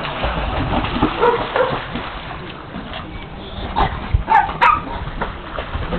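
A dog barking several times, the loudest short run of barks about four seconds in.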